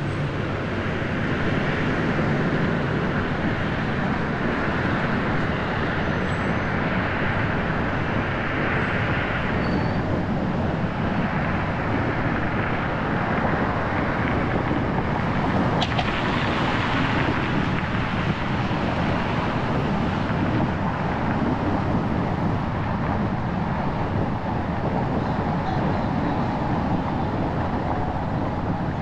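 Car driving on city streets: steady road and traffic noise, with one short sharp click about halfway through.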